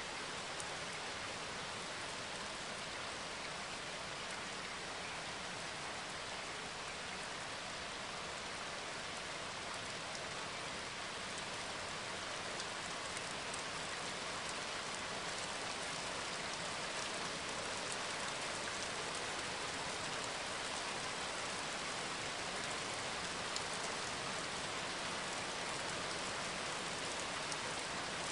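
Steady, even rain-like hiss with a few faint scattered ticks, unchanging throughout.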